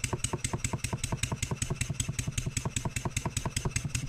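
Stuart 7A vertical single-cylinder model steam engine running on compressed air, with quick, even exhaust puffs. Under the puffs there is a knock, which the owner traces to the main bearings.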